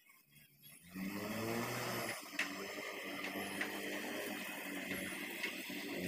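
JCB backhoe loader's diesel engine revving up about a second in as the machine drives off, then running steadily under load, with a few short sharp clanks.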